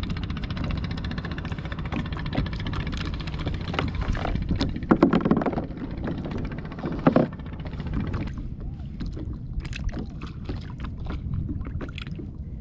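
Wind and lapping water around a small plastic sit-on-top kayak, with a few louder bumps and rustles of gear being handled, about five and seven seconds in.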